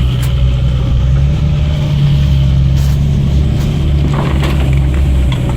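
Off-road vehicle's engine running steadily, a deep even drone, with a few light rattles about four seconds in.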